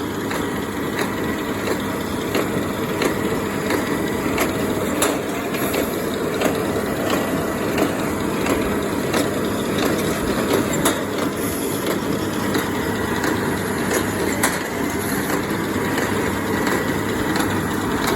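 International Harvester 1026 Hydro tractor running steadily while pulling a New Holland 570 small square baler at work, with the baler's plunger packing hay in sharp, regular knocks, about three every two seconds.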